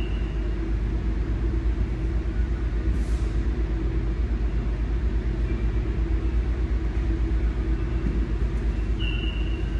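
Steady low mechanical rumble with a faint constant hum. A short high squeak comes near the end.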